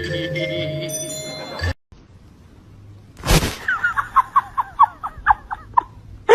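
Background music that cuts off suddenly, then a short loud burst of noise, followed by a quick run of about a dozen short, high, falling chirps, about five a second.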